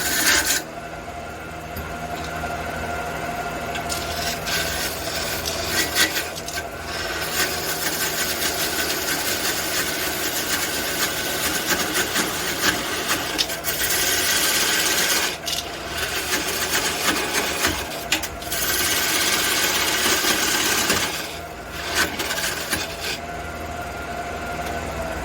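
Wood lathe running with a steady hum while a tool is worked against the spinning red cedar, making scraping, rasping stretches that start and stop several times.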